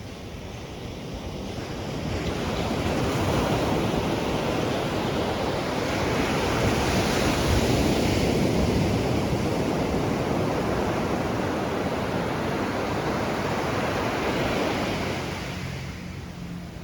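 Ocean surf: a wave swells about two seconds in, breaks and washes loudly for over ten seconds, then dies away near the end.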